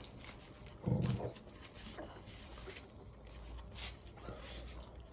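A dog makes one short, loud vocal sound about a second in, begging for food at the table, with a few faint clicks after it.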